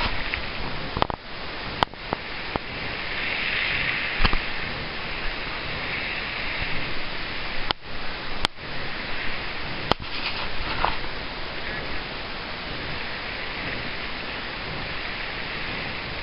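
Steamboat Geyser spitting (a minor eruption): a steady hissing rush of venting steam and spray that swells and eases, with a few sharp clicks.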